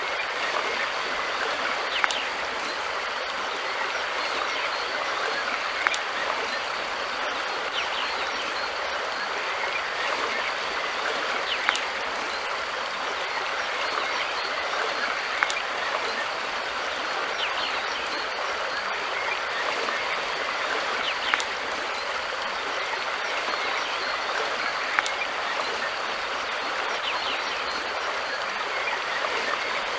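River water flowing steadily, with a sharp click cutting through every few seconds.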